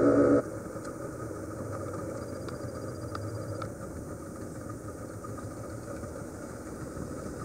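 A small dive boat's engine idling steadily alongside a larger moored boat, after background music cuts off about half a second in.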